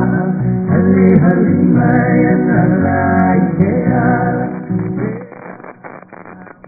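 A song with male singing and guitar, which drops away to a much quieter level about five seconds in.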